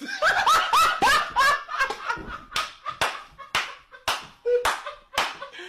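Two people laughing hard and uncontrollably, high-pitched whoops at first, with a run of sharp slaps about two a second.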